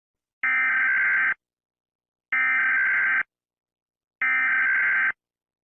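Emergency Alert System SAME header: three identical bursts of warbling digital data tones, each just under a second long and about a second apart. It is the coded data header that opens an emergency alert broadcast, ahead of the attention tone.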